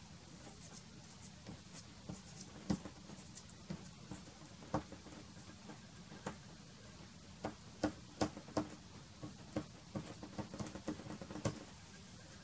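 Soft pastel stick dabbed and scratched against pastel paper: irregular light taps and scrapes, some sharper than others, stopping shortly before the end.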